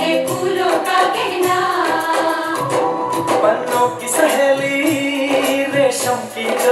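Bollywood film song playing loudly: singing with instruments over a steady beat.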